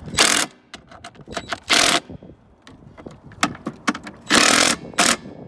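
A 3/8-inch impact gun with a T40 Torx bit gives four short zips, driving the handlebar mounting screws into the mower's plastic housing. Lighter clicks and knocks come between the bursts.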